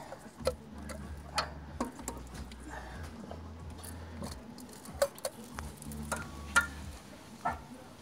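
Plastic ignition coils clicking and knocking as they are pulled from the spark-plug wells of the valve cover and set down on the engine. There are about seven sharp, irregularly spaced clicks over a low hum that comes and goes.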